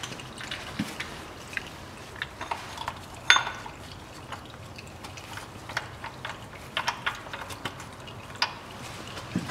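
Scattered small clicks and knocks of a gloved hand gripping and trying to turn the plastic cartridge oil filter cap on a Lexus CT200h engine, the loudest about a third of the way in. Under them is a faint trickle of old engine oil draining into a metal drain pan.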